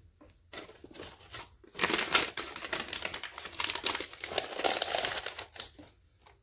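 Plastic packaging crinkling and rustling in dense, quick crackles for about four seconds, after a few light clicks at the start.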